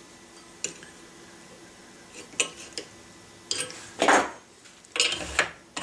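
Metal tools and parts clinking and scraping at a bench vise while a sheet-metal ramrod thimble is worked over a mandrel: a few light clicks, then two longer scrapes near the end.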